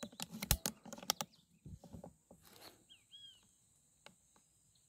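A quick run of sharp clicks and rattles in the first second or so as the scope-mounted rifle is handled and moved, then scattered faint knocks and two short chirping bird calls about three seconds in.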